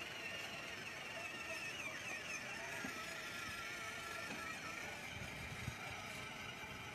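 Battery-powered ride-on toy car running, its electric motor and gearbox giving a steady whine that wavers in pitch as it drives.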